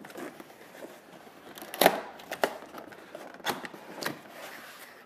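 Cardboard box being handled and shifted on foam packaging: four sharp knocks and taps, the loudest about two seconds in, with faint rustling between.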